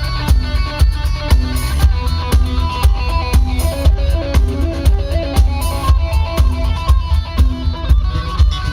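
Amplified live band music: guitar playing over a steady drum beat with heavy bass.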